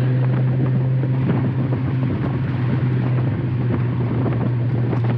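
Cabin sound of a 1991 Volkswagen Jetta under way: the engine and exhaust drone at a steady pitch while cruising, over road noise.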